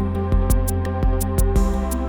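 Background music with a steady beat: sustained synth-like chords over a regular percussion pulse.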